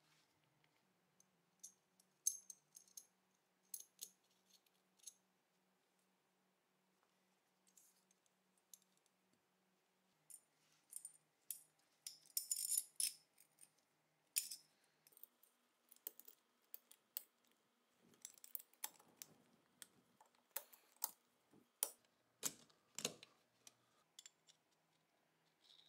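Small metal clicks, taps and scrapes of Tokarev TT-30 pistol parts being handled and fitted together by hand during reassembly, including the recoil spring being worked into place. The clicks come scattered and irregular, busiest in the middle and again near the end.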